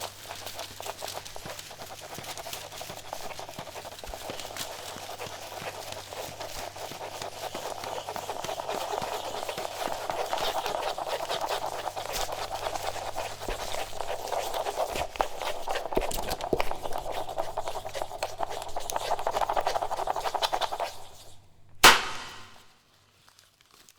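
Paper being crackled and rustled close to the microphone, a dense stream of small crackles that grows louder, over a steady low electrical hum. Near the end it stops with one sharp click, and the sound dies away.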